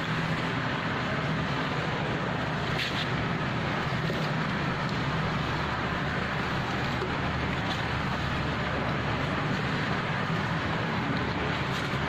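A motorboat's engine running steadily, its low hum under an even rushing noise.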